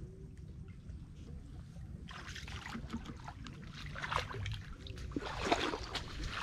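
Water sloshing and splashing as a person wades through shallow floodwater, with irregular scrapes and rustles as a hooked stick probes among tree roots and dead leaves. The sound grows busier after about two seconds.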